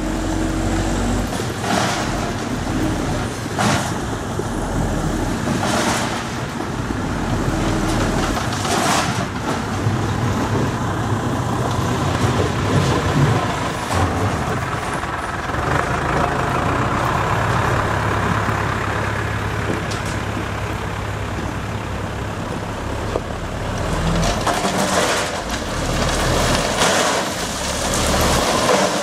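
Mitsubishi Fuso dump truck's diesel engine running steadily while it powers the hydraulic hoist to raise the tipper body and dump a load of gravel. A few short sharp sounds come in the first ten seconds.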